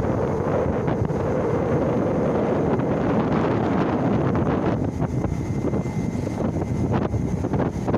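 Taiwan Railway E200-series electric locomotive (E225) moving slowly out of the station at the head of a passenger train: a loud, steady motor hum and rolling rumble, with a few sharp clicks from the wheels in the second half.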